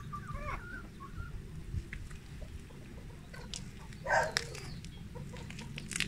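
A flock of chickens clucking, with short calls near the start and a louder, harsher call about four seconds in.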